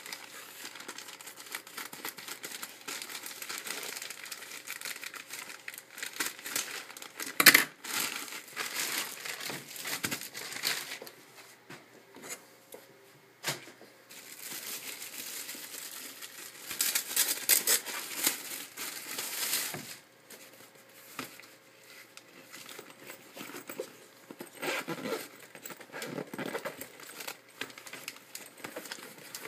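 Plastic packaging crinkling and tearing as a postal mailer and a clear plastic bag are opened by hand, with a short loud burst about seven seconds in and a long loud spell of crinkling a little past halfway.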